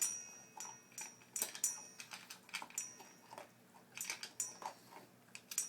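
Dog eating from a bowl: irregular crisp clicks and crunches as food is chewed and knocks against the bowl.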